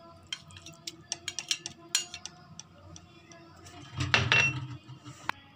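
A metal spoon clinking and tapping against a steel cooking pot as ginger-garlic paste is added to raw beef, with a louder run of clinks and a brief ring about four seconds in.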